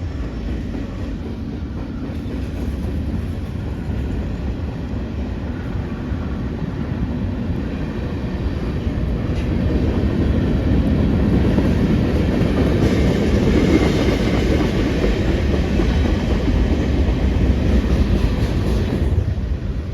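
CPKC freight train rolling past, its steel wheels rumbling steadily on the rails; the rumble grows louder about halfway through.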